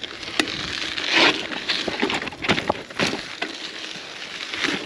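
Gravel bike riding over rocky trail: tyres crunching on grit and rock, with many sharp knocks and rattles from the bike over the bumps.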